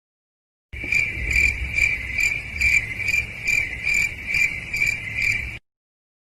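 Cricket chirping sound effect: a steady high trill that swells and dips about twice a second for about five seconds, starting and stopping abruptly.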